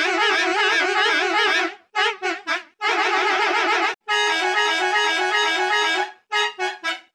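A single vehicle horn sound effect, digitally edited into a string of variations. First it is held with a fast warble in pitch, then it comes as a few short honks and a steady blast. Next it plays a run of stepped notes like a tune, and ends in quick short blips.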